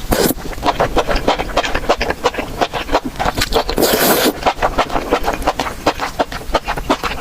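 Close-miked eating sounds: a person chewing mushroom and meat rolls, a rapid run of wet smacking clicks with a brief louder hissing burst about four seconds in.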